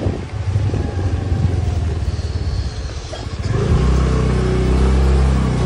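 Motorbike engine running as the bike rides along and slows, then settling to a steady idle a little before four seconds in.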